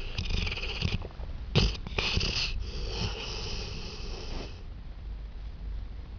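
A sleeping pet snoring and sniffling: four noisy breaths with a high hiss, one short and sharp about a second and a half in, then quieter breathing for the last second or two.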